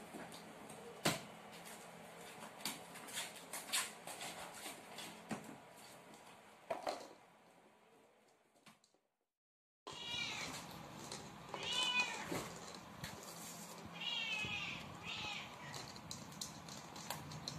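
Light plastic knocks and clicks as a kitten paws a ball around inside a plastic slotted basket. After a brief gap come four short, high kitten meows.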